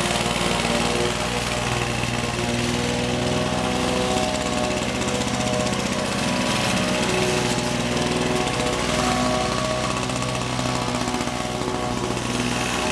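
Petrol walk-behind rotary lawn mower running steadily as it is pushed across grass.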